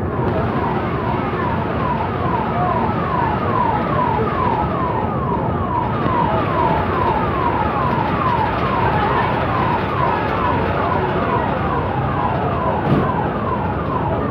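Emergency-vehicle siren in a fast yelp: a falling whoop repeating about three times a second, over the steady noise of a crowd. A short knock sounds near the end.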